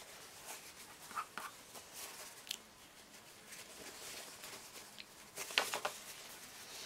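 Paper towel rustling and crumpling in the hands as a paintbrush is wiped on it, with a few light taps; the loudest crumpling comes about five and a half seconds in.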